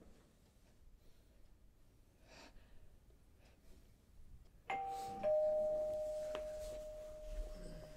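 Two-tone doorbell chime about halfway through: a higher note, then a louder lower note that rings on and fades slowly.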